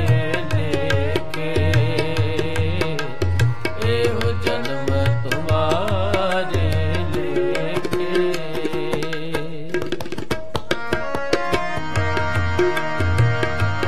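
Harmonium and tabla playing an instrumental passage of Sikh kirtan. The reed harmonium's melody runs over a steady tabla rhythm, with a quick run of tabla strokes about ten seconds in.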